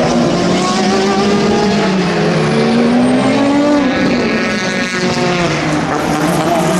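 Several racing car engines running hard at once, trackside, their pitches overlapping; one rises in pitch and then drops away about four seconds in as it goes past.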